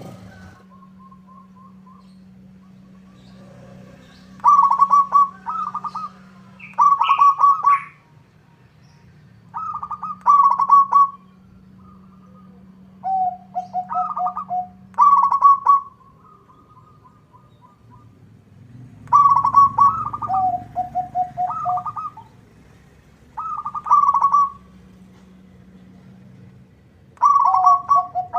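Zebra dove (perkutut) cooing: bouts of rapid staccato notes repeated every two to four seconds, some phrases stepping down to lower notes at the end. A faint steady hum sits underneath.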